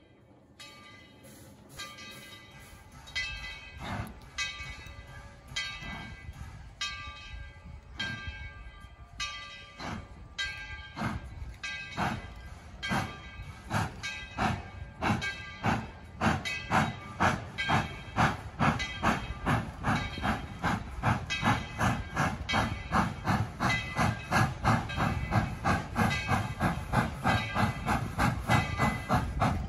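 Steam locomotive pulling away, its exhaust chuffs growing louder and quickening from about one a second to two or three a second as it gathers speed, over a steady hiss of steam.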